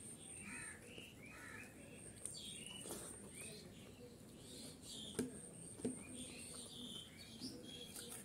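Small birds chirping over and over in short calls, with a thin high whine that comes and goes and a few soft clicks.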